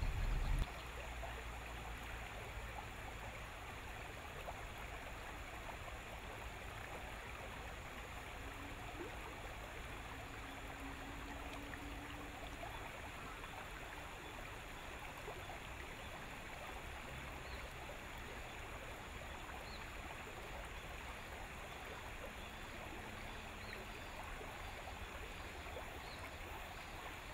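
A low rumble cuts off about half a second in, leaving a steady, even rush of flowing river water.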